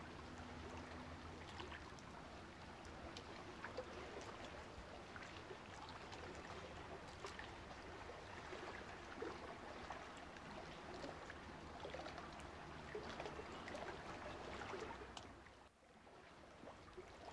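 Faint water ambience: a soft, trickling hiss dotted with small clicks and crackles. It drops out briefly near the end.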